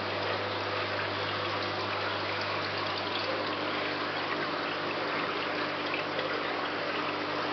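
Aquarium water trickling steadily, over the low, even hum of a pump.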